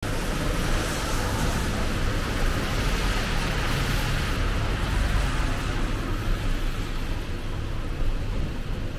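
Traffic on a wet road in the rain: a vehicle's tyres hiss on the wet asphalt, fading about halfway through, over a steady low traffic rumble and rain noise.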